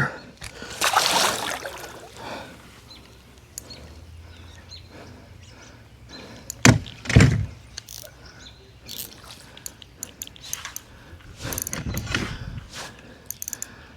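Scattered hollow knocks and thuds on a kayak, the two loudest about seven seconds in, among short bursts of rushing noise while a big redfish is fought on rod and reel.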